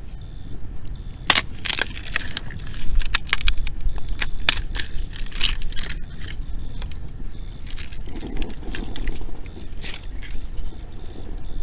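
Wood fire crackling and snapping: irregular sharp pops and cracks, thickest in the first half, over a steady low rumble.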